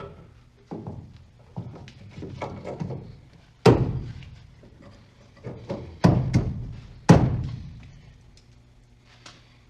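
A series of heavy knocks and thunks from hands-on work on car suspension parts, irregular, with the three loudest about three and a half, six and seven seconds in, each ringing off briefly.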